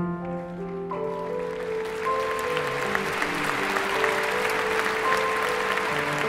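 Slow instrumental music with long held notes, joined about a second or two in by audience applause that swells and continues under the music.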